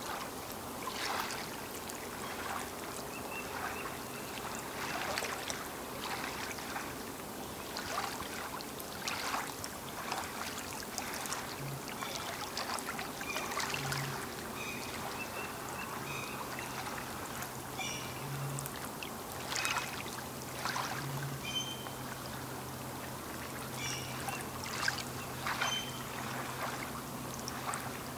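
Small lake waves lapping against the shore, splashing in an uneven rhythm every second or two.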